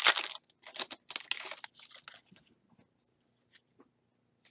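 Foil wrapper of a baseball card pack crinkling and tearing open, loudest in the first second and a half, then fading to a few faint rustles of cards being handled.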